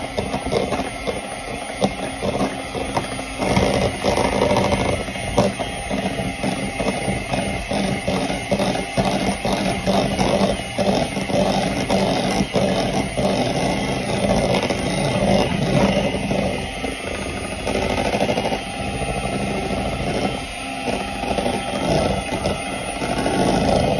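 Proctor-Silex electric hand mixer running steadily, its beaters whirring through cake batter with a fast patter of small clicks.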